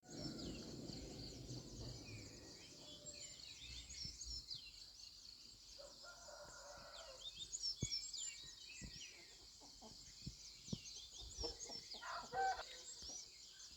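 Chickens clucking and a rooster crowing, over a constant scatter of high, quick chirps from small birds, with a few sharp knocks in the second half.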